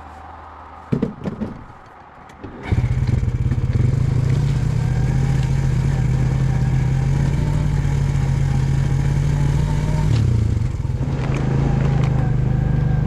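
ATV engine coming in loudly about three seconds in and running steadily as it drives along the trail, its note dipping briefly and picking up again near the end. A few brief knocks come just before it.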